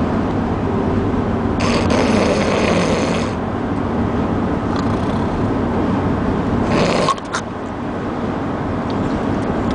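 A person snoring, with snores about two seconds in and again about seven seconds in, over the steady low rumble of a moving vehicle.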